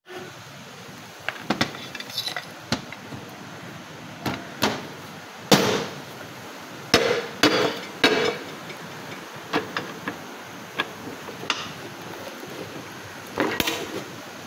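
Steering rack parts, an aluminium housing and a steel rack bar, knocking and clinking against each other and the bench vise as they are fitted and clamped: about a dozen sharp metallic knocks at uneven intervals, a few ringing briefly.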